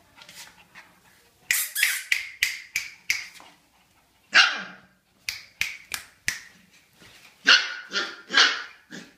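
Siberian husky puppies barking in short, high-pitched yips, starting about a second and a half in and coming in quick runs, with a few longer calls among them.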